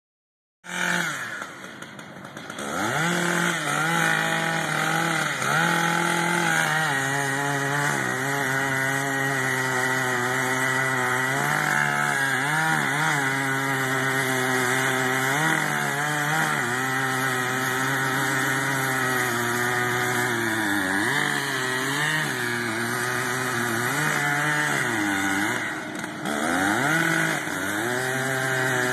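Chainsaw cutting into the base of a large willow trunk, its engine running hard with the pitch dipping and recovering again and again as the chain bogs in the wood.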